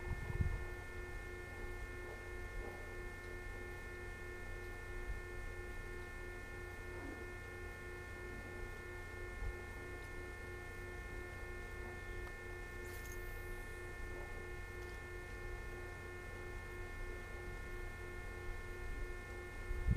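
Steady electrical hum: several held tones, low and high, running unchanged over a low rumble.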